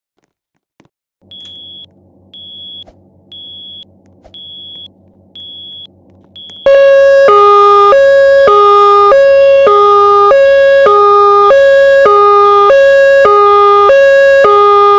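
Fire alarm system being tested: a high-pitched beep sounds about once a second. About six and a half seconds in, a very loud alarm tone starts, switching back and forth between two pitches roughly every half second, while the beeps carry on.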